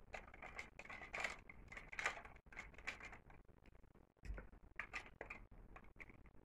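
Faint irregular scratching and light clicking, a quick run of short strokes with a few pauses, from small makeup items being handled.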